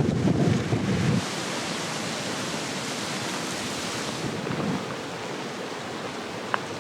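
Wind buffeting the microphone with a low rumble that cuts off about a second in, followed by a steady hiss of wind that eases slightly about four seconds in.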